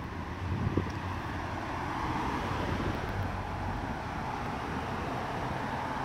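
Steady street traffic noise, a hiss of tyres and engines that builds over the first second or two and then holds steady.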